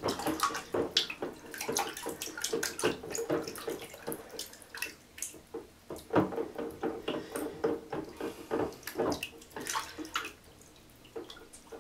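Water sloshing and splashing in quick irregular bursts as a hard-plastic underwater camcorder housing is held under and shaken around, easing off for about a second near the end.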